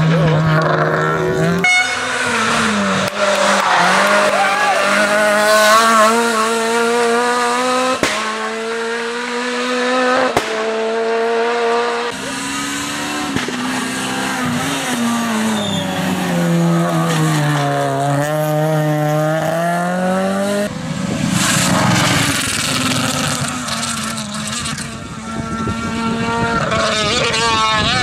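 Renault Clio rally car's four-cylinder engine at full throttle, its pitch climbing through each gear, then dropping at the shifts and under braking, over several passes. Tyre and road noise comes in as the car goes by.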